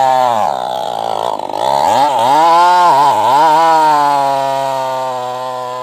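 New West 588 chainsaw, a tuned-up saw, cutting through a mahogany log. Its engine pitch dips repeatedly as it bogs under load in the first half, then runs steadier and grows a little quieter near the end.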